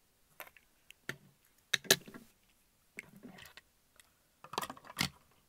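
Die-cast toy cars handled up close: scattered small clicks and taps of the metal-and-plastic bodies against fingers and each other, the sharpest about two seconds in and near the end.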